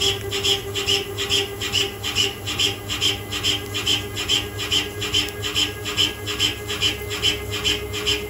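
CNC lathe taking a heavy facing cut on a large steel ring with a carbide WNMG insert, under coolant. The cutting noise pulses evenly about three times a second over a steady machine hum.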